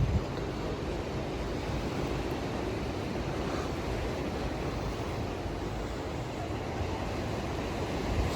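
Steady rushing outdoor ambience with wind buffeting the microphone, with a low thump right at the start.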